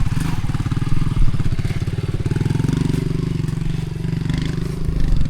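Motorcycle engine running close by, with a steady low, rapidly pulsing note.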